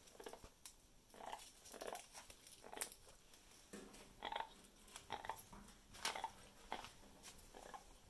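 Irregular faint clicks, taps and short scratchy rustles as an Amazon parrot grips and mouths a woven rattan ball with its beak and shifts its feet on a hard countertop.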